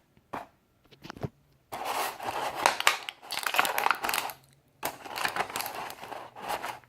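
A few light clicks, then crinkling and rustling as toy packaging and small plastic accessories are handled, in two spells with a short pause between.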